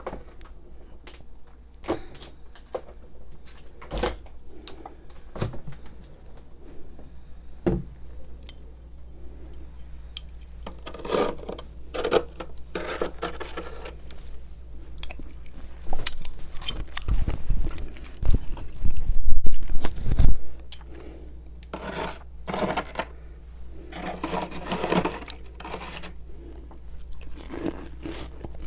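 Freezer frost being scraped loose and chewed: scattered scraping strokes and sharp clicks, with a louder run of heavy crunching bites about halfway through.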